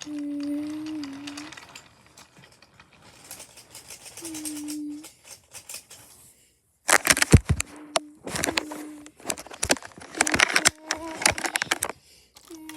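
Wooden toy trains and track pieces clattering and clicking as they are handled and pushed, in quick runs of knocks. A steady humming tone starts and stops several times alongside.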